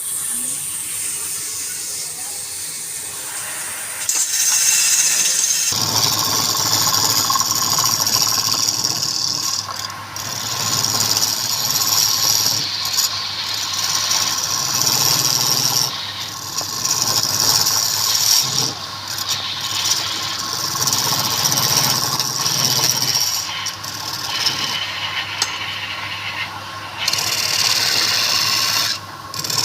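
Wood lathe running, with a turning tool scraping and cutting the spinning wooden workpiece. The motor hum comes in about six seconds in, and the cutting noise swells and eases as the tool is worked.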